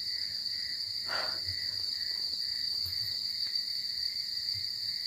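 Crickets chirring steadily, a continuous high-pitched trill with a weaker, lower band beneath it. A brief faint rustle comes about a second in.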